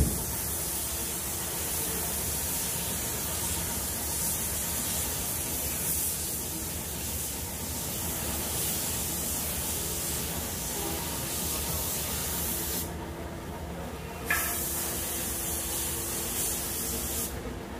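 Gravity-feed paint spray gun hissing steadily as compressed air atomises the paint. The hiss stops for about a second and a half near the two-thirds mark and again shortly before the end as the trigger is let off, with a short knock when spraying resumes.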